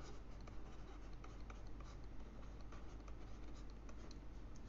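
Faint scratching and light irregular ticks of a stylus writing on a pen tablet, over a low steady hum.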